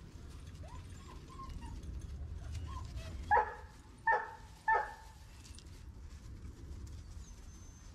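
Giant Schnauzer puppies vocalising: faint, high whimpers early on, then three short, high yips in quick succession near the middle.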